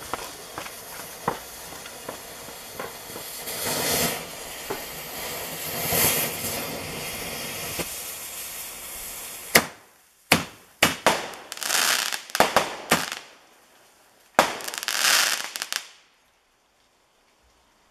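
Weco airbomb fireworks going off: several seconds of continuous hissing and crackling with small pops, then a run of sharp bangs with bursts of crackle, which stops abruptly near the end.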